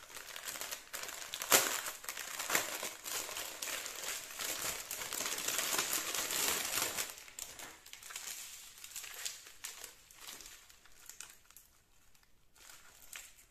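Clear plastic packaging around a bundle of small bags of resin diamond-painting drills crinkling as it is handled and unwrapped. There is a sharp crackle about a second and a half in; it is loudest for the first seven seconds or so, then softer and patchier.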